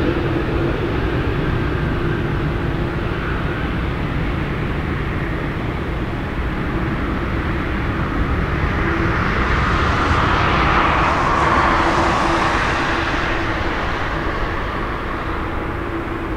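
Boeing 787-9 airliner's jet engines running at taxi power, a steady rumble and hiss with a constant hum. The sound grows louder and brighter about ten seconds in, then eases off.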